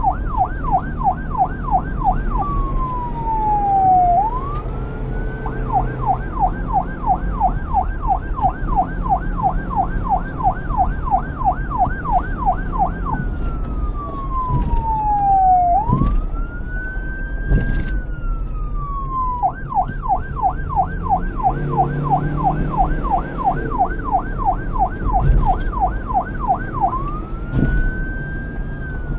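Police car siren switching between a fast yelp, about four rises a second, and slower wail sweeps that climb and fall over a couple of seconds each, over a low rumble.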